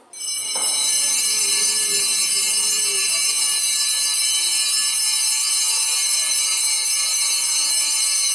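Altar bells rung continuously: a dense, high ringing that starts suddenly and holds at an even level. It marks the elevation at the consecration.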